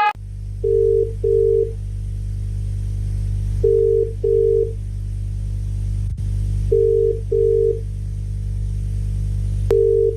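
Electronic double beeps, pairs of short steady tones repeating about every three seconds, over a steady low hum; the cadence is that of a telephone ringing tone. The last pair is cut off after its first beep.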